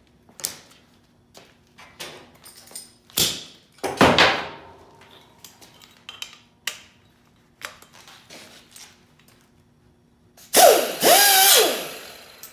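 Hand tools and metal parts being handled on a workbench: scattered clicks and knocks, a loud clang about four seconds in that rings on for a couple of seconds, then a loud mechanical burst lasting about a second and a half near the end, its pitch wavering.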